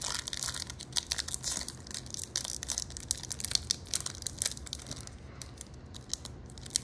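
Pokémon trading cards and a foil booster-pack wrapper being handled: crinkling and rustling with many quick, sharp clicks of card, busiest in the first two seconds and thinning out near the end.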